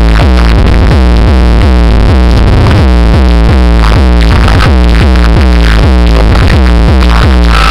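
Electronic music with a pounding bass beat and repeating falling synth notes, played very loud through a car sound system's wall of large subwoofers and horn tweeters.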